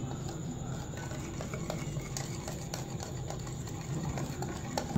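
Wire whisk stirring flour into a whisked egg-and-sugar batter in a bowl, with light irregular clicks of the whisk against the bowl over a low steady hum. One sharper click comes near the end.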